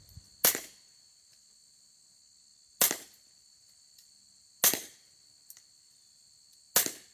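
Four shots from a suppressed pistol firing subsonic ammunition, each a short sharp report with a brief tail, spaced about two seconds apart.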